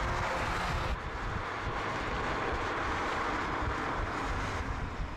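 VW Golf R Mk8.5 prototype driving at speed, its turbocharged 2.0-litre four-cylinder engine heard under strong wind noise on the microphone.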